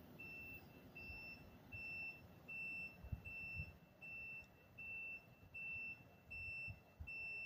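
A high-pitched electronic beep repeating steadily, about four times every three seconds, growing slightly louder.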